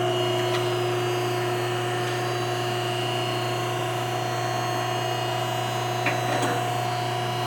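PTR 5000 vertical cardboard baler's electric motor and hydraulic pump running steadily under power with an even, pitched hum as the press cycles. A faint knock about six seconds in.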